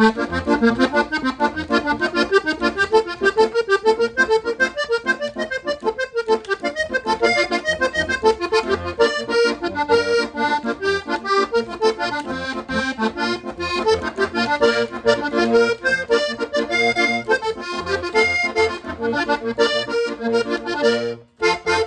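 Hohner Corona II Compadre button accordion, two reeds per button, playing quick runs of notes as a practice exercise, with a short break near the end.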